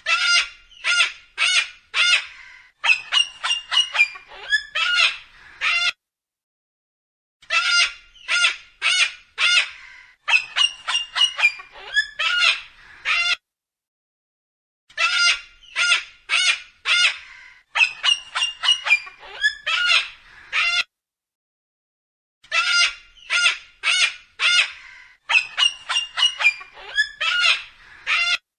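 Cockatoo screeching: runs of short calls, about two a second, in bursts of about six seconds broken by brief silences. The same sequence repeats about every seven and a half seconds, four times over.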